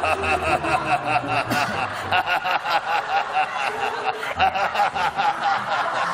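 People laughing hard and without a break, in rapid ha-ha pulses several times a second.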